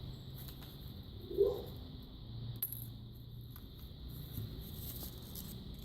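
Faint light clicks of small metal lock parts, the pins and springs of a pin-tumbler deadbolt, being handled and set down while the lock is taken apart, with one short dull knock about a second and a half in.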